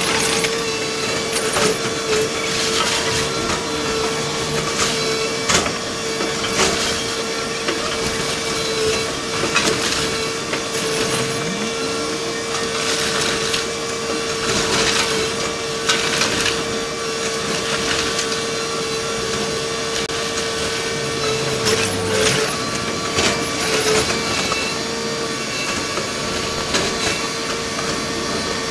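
Kobelco SK220LC hydraulic excavator working a demolition, sped up to four times normal speed: its engine makes a steady raised-pitch drone, over irregular crunching and knocking of breaking masonry and debris.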